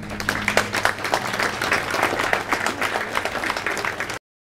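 Audience applauding a song, many hands clapping, with the last guitar chord still ringing faintly under the start. The applause cuts off suddenly into silence near the end.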